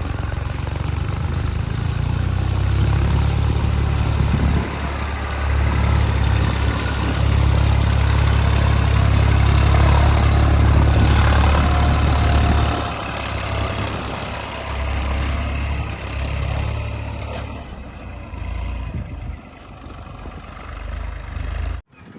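Diesel engine of a JCB 3DX backhoe loader running while it works, with a strong low rumble. It swells for several seconds in the middle of the clip, then drops back and rises and falls unevenly.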